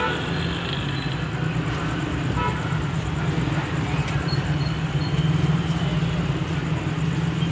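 Steady street traffic noise with a constant low engine hum.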